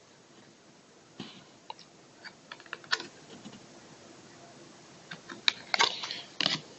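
Trading cards being handled and shuffled through by hand: light irregular clicks and scrapes of card stock, growing busier near the end.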